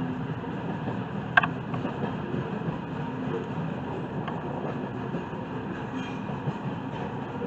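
Indiana Rail Road freight train's double-stack container cars rolling past at a grade crossing: a steady rumble of steel wheels on rail. One sharp, louder hit about a second and a half in.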